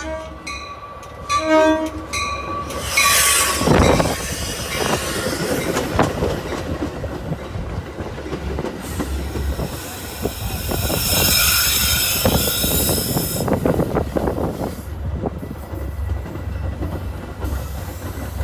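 Metra commuter train passing close alongside a station platform. A bell dings about once a second at the start, then a loud rush comes as the cab car goes by about four seconds in. The stainless-steel bilevel cars follow with a steady rumble and wheels clicking over the rail joints, and a high hiss or squeal in the middle.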